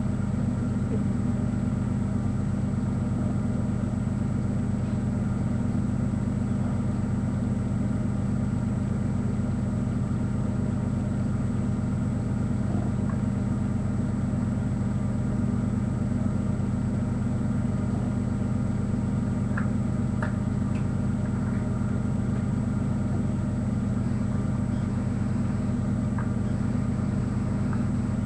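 Steady low droning hum with a faint high-pitched whine above it, unchanging throughout, with a few faint clicks late on.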